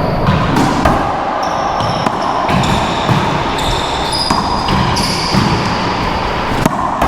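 Racquetball rally: a few sharp ball strikes ring off the walls of an enclosed court. Under them runs a steady hiss and buzz with shifting high whines, typical of electrical interference in the recording.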